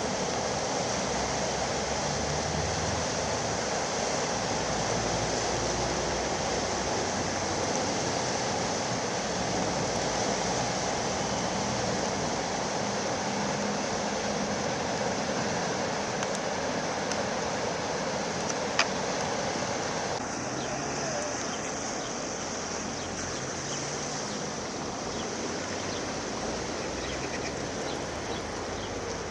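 Steady rushing of flowing floodwater, with a single sharp click about two-thirds of the way through.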